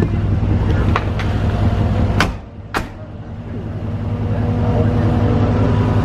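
A vehicle engine running with a steady low rumble, broken about two seconds in by two sharp clicks half a second apart.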